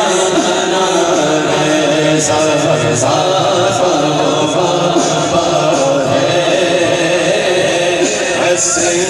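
Male voice singing a naat (Urdu devotional poem) into a microphone through a PA system, the melody held and wavering without a break, with another singer at a second microphone backing him.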